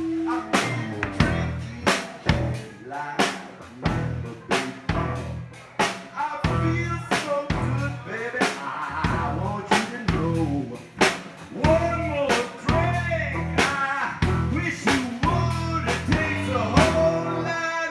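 Live blues band playing: drums with regular snare and bass-drum hits under electric bass, and a melodic lead with bending notes coming in about six seconds in.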